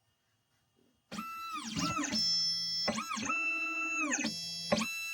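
Stepper motors of an Xhorse Dolphin XP-005 key-cutting machine whining as they drive the carriage through a cutter height calibration, starting about a second in. Steady pitched whines sweep down and back up several times as the motors slow, stop and set off again.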